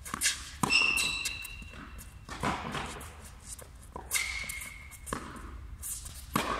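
Tennis rally in an indoor hall: sharp racket strikes and ball bounces every second or so, echoing off the hall. Sneaker soles squeak on the court in between, two longer squeaks most plainly.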